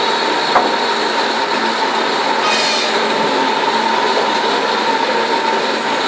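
Sawmill machinery running steadily, a constant mechanical din with a held whine, and a single sharp knock about half a second in.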